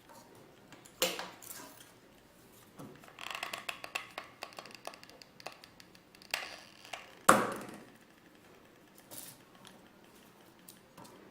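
Wooden popsicle sticks being handled and set down on a tabletop while they are hot-glued together: scattered light clicks and taps, with a sharper knock about a second in and the loudest knock about seven seconds in.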